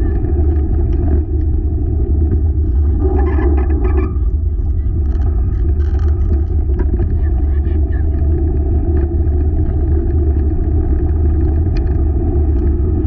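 Steady, loud low rumble of a four-dog open rig rolling along the trail, with scattered clicks and rattles over it.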